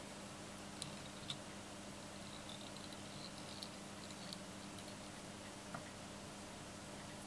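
Faint handling sounds of fly tying: about five light clicks and soft ticks as fingers work the tying thread and bobbin around a jig hook held in a vise, over a steady low hum.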